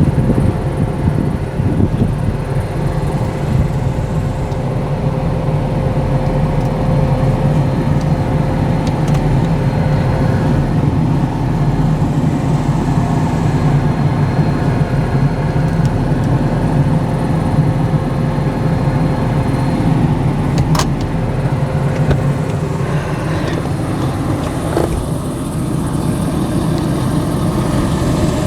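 Truck engine running steadily, a low even drone with a faint steady whine above it.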